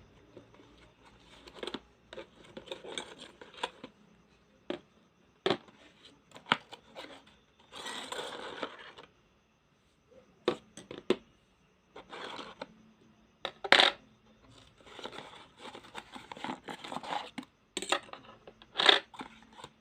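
A gas lighter and its packaging being handled: scattered sharp clicks and taps with short scraping noises, and a longer scraping stretch about eight seconds in.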